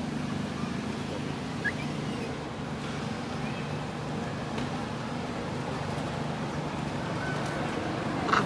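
Steady low engine hum of motor traffic outdoors, with a short high chirp about two seconds in and a sharp click near the end.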